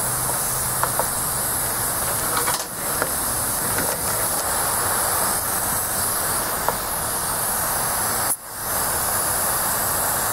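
Refrigerator compressor mounted on a pancake air compressor tank running and pumping air into the tank: a steady hiss with a faint low hum, briefly dipping about eight seconds in.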